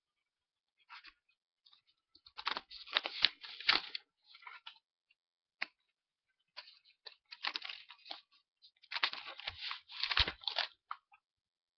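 Handwritten paper note cards being handled and flipped close to the microphone: paper rustling and scraping in three irregular spells.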